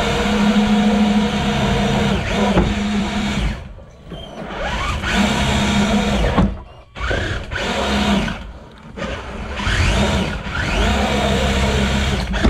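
Electric motor and gear drivetrain of a Traxxas TRX-4 RC crawler whining in four bursts as the throttle is worked, rising in pitch as it speeds up, with short drops between bursts. Heard from on board the truck.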